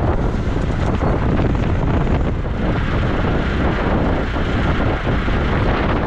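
Strong wind buffeting the microphone: a loud, steady rumbling noise.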